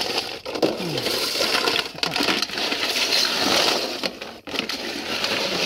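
A heap of freshwater clam shells clattering and grinding against each other and a steel basin as a hand scoops through them.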